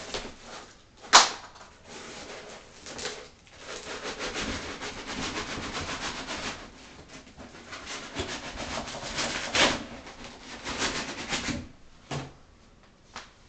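Foam packing blocks rubbing and scraping against the sides of a cardboard box as the packed model is lifted out, in long rough stretches with a louder scrape near the end. A single sharp click about a second in.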